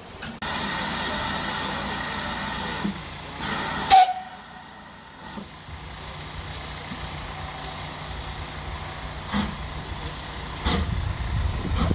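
GWR steam locomotive letting off steam: a loud hiss starts suddenly about half a second in and holds for a couple of seconds, then a second, shorter blast. Near the end a low, uneven rumble of pulses builds.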